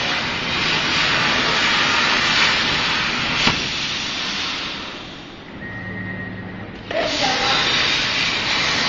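Plasma cutting torch hissing loudly while it cuts. The hiss dies away about five seconds in and starts again abruptly about two seconds later. There is a sharp click about three and a half seconds in.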